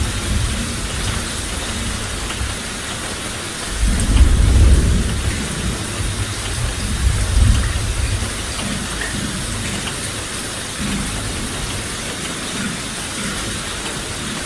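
Steady rain hissing, with a low rumble of thunder swelling about four seconds in and a smaller rumble a few seconds later.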